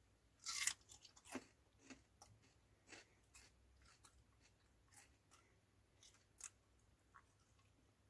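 Raw potato being bitten and chewed up close: a loud crunch about half a second in, then irregular smaller crunches.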